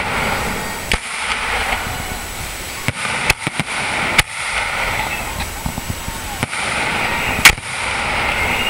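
Fireworks display: aerial shells bursting with sharp bangs over a continuous crackle. There is a quick cluster of bangs about three to four seconds in, and the loudest bang comes near the end.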